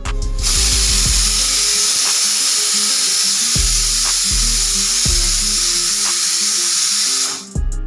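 Pressure cooker whistle blowing off steam: a loud, high hiss with a whistling tone in it. It starts abruptly just after the start and cuts off about seven seconds later, over background music with a steady beat.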